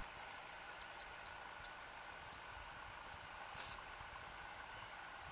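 Birds calling with short, high chirps, scattered irregularly at about two or three a second, some sliding down in pitch, with a couple of brief rapid trills.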